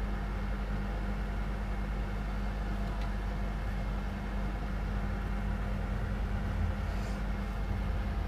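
Steady low electrical hum with an even hiss: background room tone with no speech.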